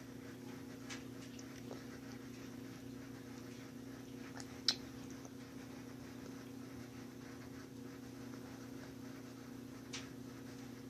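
Steady low hum with a few small clicks and taps over it, the sharpest about four and a half seconds in and another near the end.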